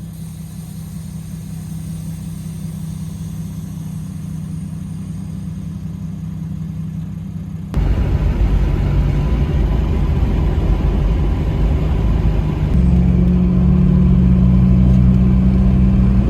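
A car running on the road, with a steady low engine and road rumble. About eight seconds in the sound cuts abruptly to a louder, fuller engine rumble, which steps up again with a steady low hum shortly before the end.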